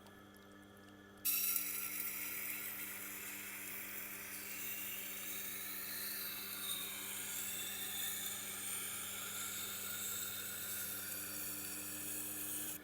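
Steel knife blade, a Japanese bunka, pressed to a spinning sharpening wheel: a steady, high grinding hiss starts suddenly about a second in and holds over the machine's even motor hum. This is the final grinding pass forming the new edge bevel.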